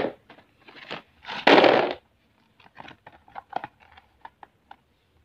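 Cardboard box of plastic-sealed chocolate cream cups being handled: two loud rustling scrapes of cardboard in the first two seconds, then a run of light, quick taps and clicks.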